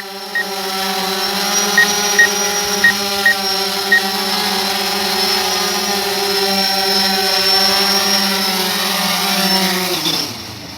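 DJI Phantom 4 quadcopter's four motors and propellers humming steadily in flight, then winding down in pitch and stopping about ten seconds in as it lands. A few short high beeps sound during the first few seconds.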